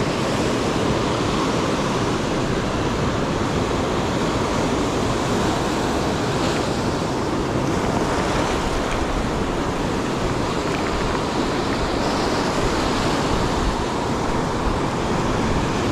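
Ocean surf breaking and washing in on the shore, a steady, continuous rushing noise.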